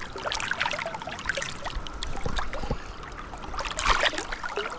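Stream water trickling and splashing, with a louder splash about four seconds in.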